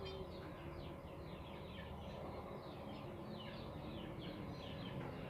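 Birds chirping: a steady run of short, falling chirps repeating over a low, steady hum.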